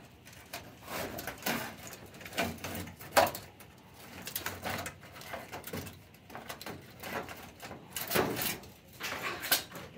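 Rustling and clattering of a wiring harness and sheet-metal parts being handled inside an opened gas furnace cabinet, with a sharp knock about three seconds in.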